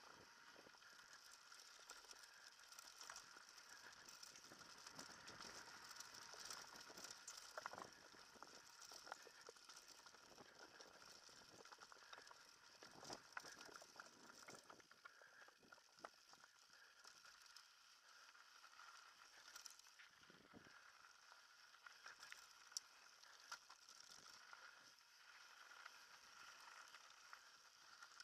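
Mountain bike rolling downhill over a dirt and rock trail, heard faintly through a helmet-mounted camera: irregular clicks, knocks and rattles from the bike over the bumps, over a steady faint hiss.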